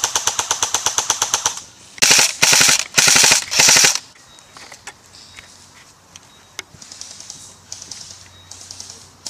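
Airsoft guns firing on full auto: a long, rapid burst that stops about a second and a half in, then four short, much louder bursts fired close by, then fainter bursts from farther off.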